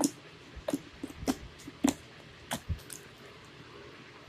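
Homemade slime being kneaded and squeezed by hand, giving a run of short wet squelches and sticky clicks, roughly two a second.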